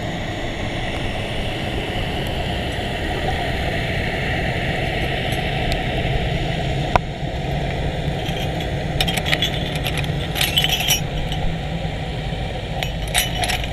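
Heard underwater: corroded steel mooring chain links clinking and rattling against each other as they are handled, in short clusters through the second half. There is a single sharp click partway through, all over a steady low underwater noise.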